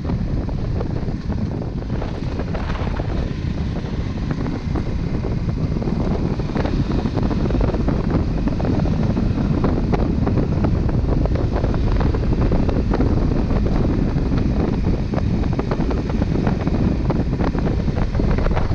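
Wind buffeting the microphone over the running engine of a Honda Transalp 600, a V-twin, as the motorcycle rides along a dirt track. Frequent short ticks and knocks run through it, and it gets a little louder partway through.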